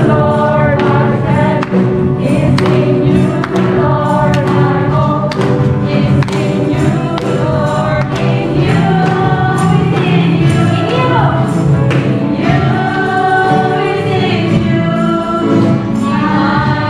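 A church worship team and congregation singing an upbeat gospel praise song, with a steady beat under the voices.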